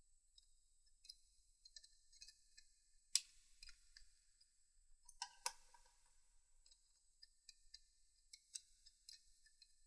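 Faint, irregular metallic clicks and clinks of a spanner working on the cylinder head bolts of a Triumph T120 engine, with two sharper clinks about three and five seconds in.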